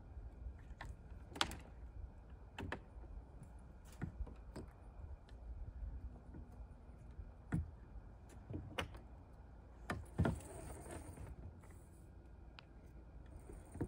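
Scattered clicks, knocks and thunks of fittings, lines and a mast being handled against a kayak hull during rigging, with a short rustle about ten seconds in.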